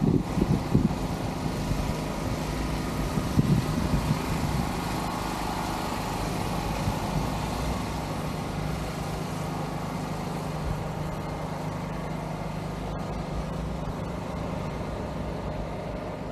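Steady outdoor background noise with a low droning hum. Louder low rumbling surges come at the start and again about three to four seconds in.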